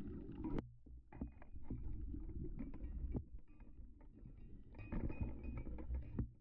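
Muffled underwater rumble picked up by a GoPro in its waterproof housing, with scattered sharp clicks and knocks as the camera is moved about over the reef. The sound changes abruptly about half a second in.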